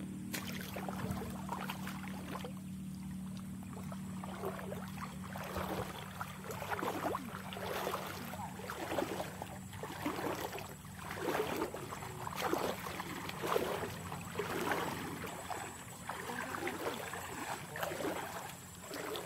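People wading through shin-deep floodwater, each step a sloshing splash. The steps settle into a steady rhythm of about one splash a second from roughly six seconds in.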